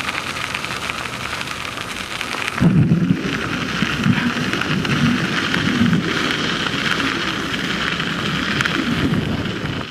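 Wind buffeting the microphone outdoors: a steady rushing hiss with irregular low rumbling gusts that start about three seconds in.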